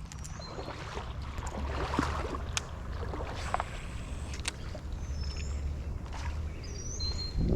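Creek water sloshing and splashing around the legs of a wading angler, with a few sharp clicks and a steady low rumble. A few short high chirps come in over it, mostly in the second half.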